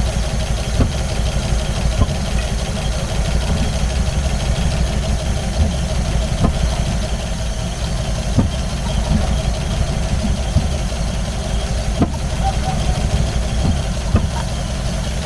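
GAZ-66's petrol V8 engine idling unevenly after warm-up, with sharp pops now and then as it misfires and cuts out. The owner suspects wrong valve clearances, perhaps rocker arms set too tight.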